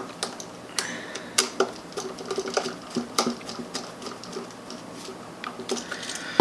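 Uneven light clicks and taps, two or three a second, from hands and a screwdriver working wires onto a wall switch's screw terminals.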